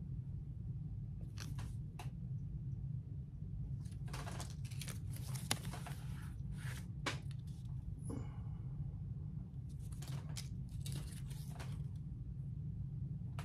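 Paper cigar bands rustling and crinkling in the hand in several short bouts, with a sharp click about five seconds in, over a steady low hum.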